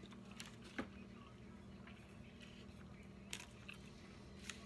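Near silence: a steady low hum with a few faint clicks of chewing.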